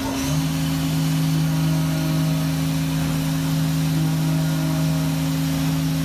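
A 2012 Haas VF-2 CNC vertical mill running with coolant flowing. Its steady machine hum is joined by a second, lower steady tone a moment in, over the even hiss of coolant spray.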